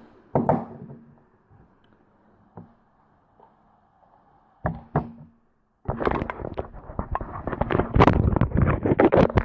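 Close handling sounds: a few separate knocks and clicks, then, from about six seconds in, a loud dense run of rubbing and clattering.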